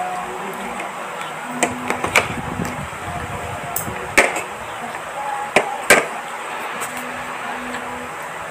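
Spoon and fork clinking and scraping against a plate, with about five sharp clinks spread through, the loudest two close together in the second half, over a steady background hiss.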